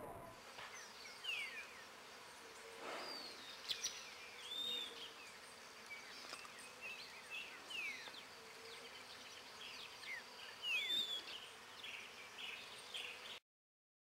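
Birds calling: short high chirps, arched whistled notes and quick downward-slurred whistles, repeated every second or so, cutting off suddenly near the end.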